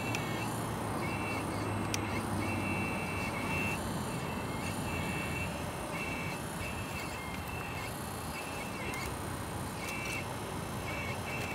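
Radio-controlled model excavator running as its arm and grapple move, with a steady mechanical noise and a low hum that eases after about four seconds. A high-pitched beep repeats about once a second.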